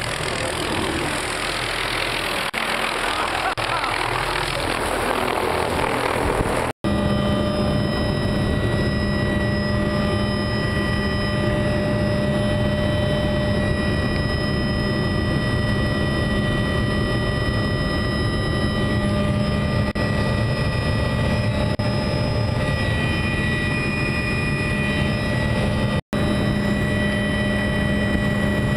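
A rushing noise of wind on the microphone for the first several seconds. After a sudden cut, the steady drone of an aircraft engine is heard from inside the cabin, with several constant whining tones layered over a rumble.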